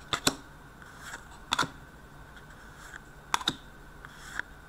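Hockey trading cards being slid off a hand-held stack one at a time: a handful of short, sharp card clicks and snaps, several in quick pairs.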